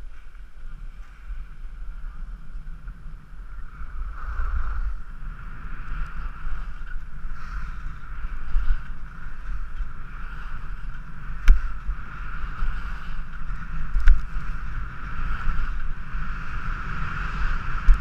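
Skis sliding and scraping over packed, tracked piste snow, a steady hiss that grows louder about four seconds in, with wind buffeting the microphone. Two sharp knocks come about two and a half seconds apart in the second half.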